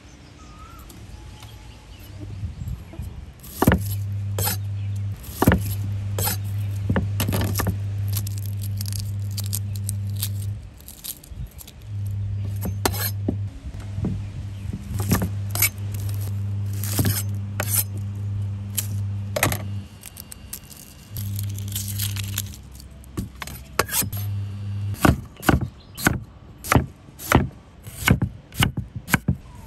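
Food preparation sounds: scattered clinks and knocks of utensils over a low steady hum that starts and stops several times. Near the end comes a quick run of sharp knife chops on a board.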